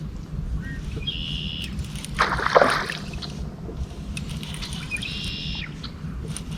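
A hooked largemouth bass thrashing at the water's surface, one loud splash about two seconds in, over a steady low rumble. Two short high buzzes come about a second in and again near the end.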